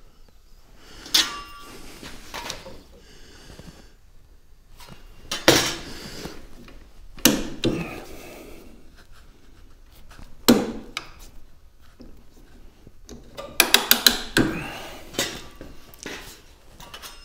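Workshop handling sounds as a small metal clamp and a wooden fence strip are set and pressed onto a fibreboard panel on a wooden workbench: scattered single knocks and clicks a few seconds apart, and a quick run of about five clicks about fourteen seconds in.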